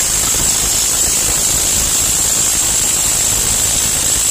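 Cordless 20 V ZISS half-inch impact wrench hammering continuously on a truck wheel's lug nut, a steady loud rattle with a thin high whine over it; the nut is not breaking loose.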